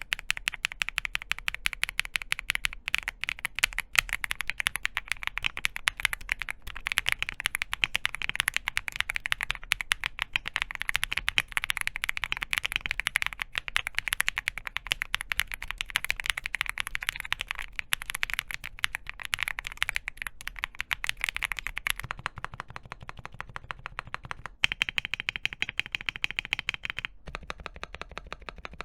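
Continuous fast typing on a QK65 mechanical keyboard with KTT linear switches and Akko keycaps: a dense run of clacky keystrokes. The sound changes about 22 seconds in, and again about 27 seconds in.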